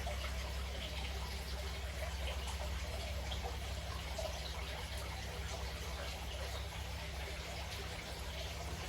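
Water trickling over a steady low hum, with faint scattered small clicks.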